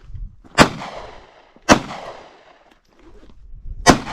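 Three handgun shots fired one at a time, the first two about a second apart and the third after a pause of about two seconds. Each is a sharp, loud crack followed by a short echoing tail.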